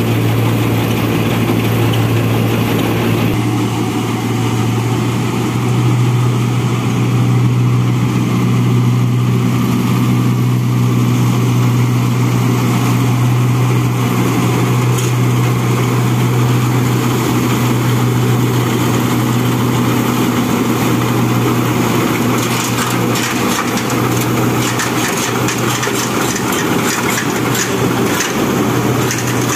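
Turbocharged Mahindra Arjun Novo 605 tractor's diesel engine running steadily under load at about 1500 rpm, driving a straw reaper through wheat stubble. From about three-quarters of the way through, a dense, fast crackling joins the engine.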